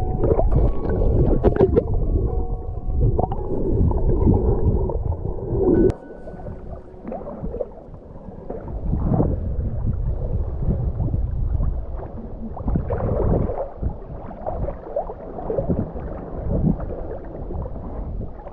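A diver's bubbles and rushing water heard through an underwater camera, a loud, muffled, bubbling rumble. About six seconds in, the camera breaks the surface and the sound drops to the lighter slosh and slap of choppy sea water.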